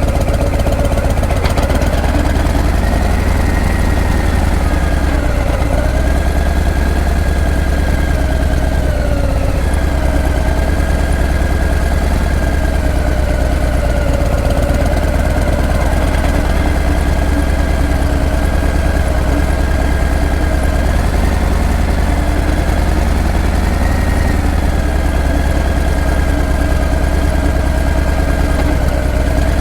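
Harley-Davidson Breakout's V-twin engine and exhaust running at low revs, its pitch rising and falling gently as the throttle eases on and off in slow riding.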